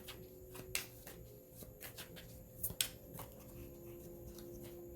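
Tarot cards being handled, with a few scattered soft taps and rustles over a faint steady hum.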